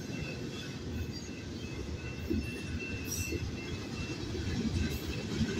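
Manifest freight train's cars rolling past: a steady rumble of steel wheels on rail, with a thin, high wheel squeal coming and going over it.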